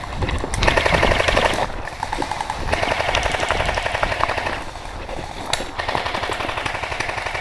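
Airsoft automatic gun firing long bursts of rapid clicking shots, with short pauses between the bursts.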